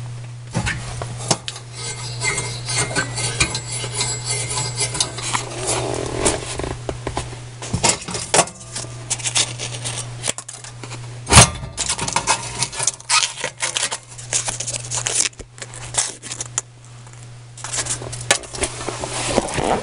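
Irregular metallic clinks, scrapes and knocks of tools and sheet-metal parts being handled inside a gas oven's burner compartment, with one loud knock about eleven seconds in, over a steady low hum.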